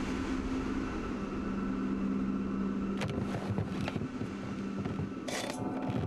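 A steady low hum with a held tone, broken by a patch of crackling knocks about three seconds in and a short burst of hiss about five seconds in.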